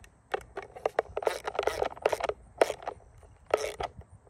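A ratchet with a deep socket on a long extension is worked inside a shotgun's buttstock to tighten the stock-bolt nut. It makes about ten irregular scraping, clicking strokes of varying length.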